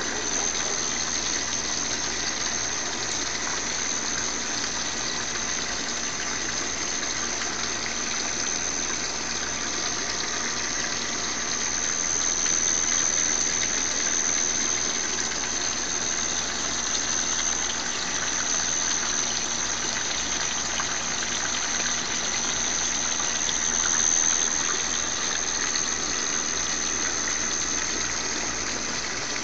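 Steady rush of water in a garden pond, with a constant high-pitched tone running over it.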